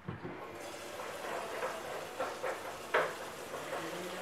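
Water running steadily into a container as it is filled, with a few light knocks of the container being handled.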